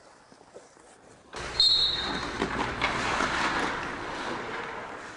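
A short whistle blast about a second and a half in, then ice hockey skates scraping and hissing on the ice with a couple of sharp stick-and-puck knocks, the skating noise slowly fading toward the end.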